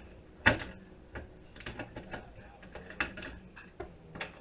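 Hands breaking apart and sorting small electronic components salvaged from a circuit board: irregular clicks and light knocks, with one sharp knock about half a second in.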